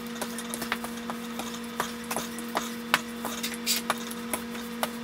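Wooden rolling pin rolling puff pastry dough out on a floured table: irregular clicks and light knocks, a few each second, over a steady low hum.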